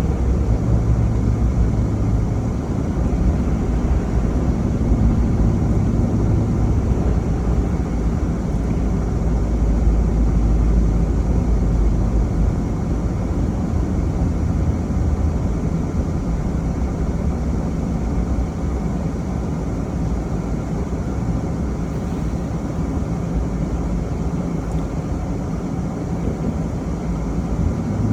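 Steady low rumble of a car being driven: engine hum and road noise, with slight shifts in the engine's pitch.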